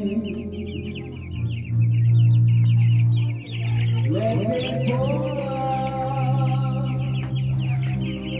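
A flock of young broiler chicks peeping rapidly and continuously, many small high calls overlapping, with background music playing underneath.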